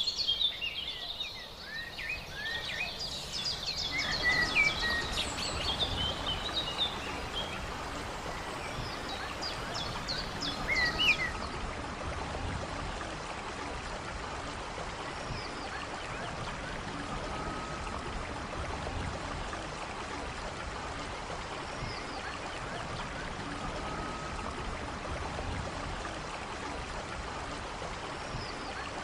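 Songbirds chirping and singing, with a stream's steady rush of running water coming in about four seconds in. The birdsong thins out after about eleven seconds, leaving mostly the stream, with a short, level call repeating every few seconds.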